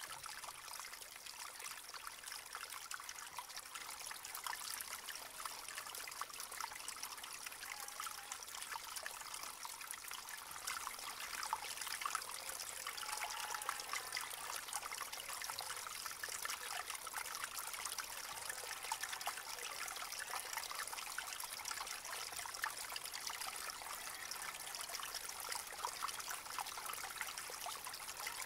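Shallow spring-fed stream trickling steadily, a continuous fine patter of small drips and splashes.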